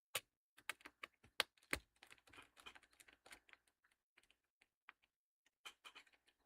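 Small plastic and metal clicks and taps as a screwdriver works a screw in a laptop's bottom case. There is a quick cluster of clicks in the first two seconds, the loudest just under two seconds in, then a busier patch of light clatter and a few scattered taps.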